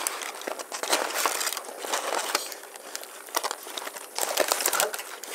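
Crumpled aluminium foil crinkling and crackling in irregular bursts as metal tongs work inside the foil packet.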